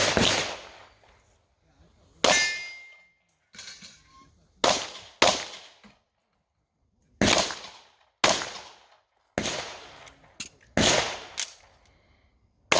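Pistol shots fired one at a time at an irregular pace of about one a second, with some longer pauses, about ten in all, each with a short echoing tail. A fainter metallic clang or ring follows some shots.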